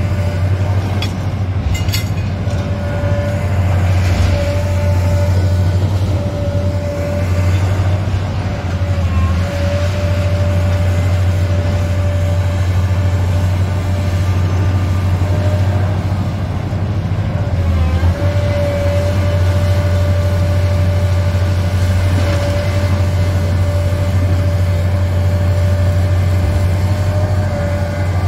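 A high-reach demolition excavator and a dust-suppression cannon running: a steady deep engine drone with a constant whine above it, dipping briefly now and then. A few sharp knocks come about two seconds in.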